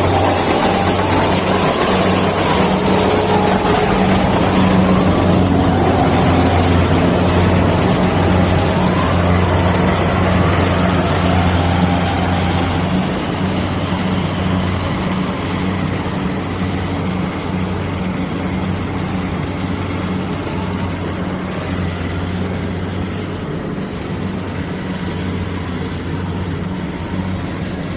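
Kubota DC-70 rice combine harvester's diesel engine running steadily at working speed while it cuts lodged rice. The engine is loud and close at first, then farther off and quieter from about twelve seconds in.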